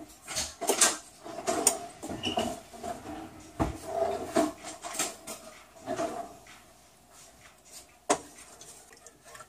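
Kitchen clatter: dishes and utensils clinking and knocking as a drawer and the counter are rummaged through, a run of short rattles that eases off after about six seconds, then one sharp knock near the end.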